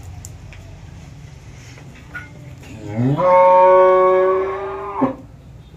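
A cow moos once, about three seconds in: one long, loud call that rises at the start, holds a steady pitch, and breaks off sharply about two seconds later.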